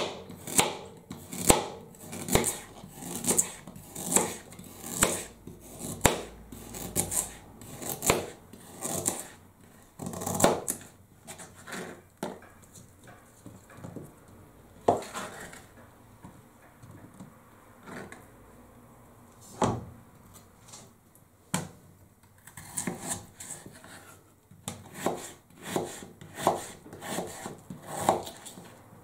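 Kitchen knife chopping a raw carrot, then peeled potatoes, on a plastic cutting board: a series of sharp knocks as the blade hits the board, about two a second, thinning out for several seconds in the middle.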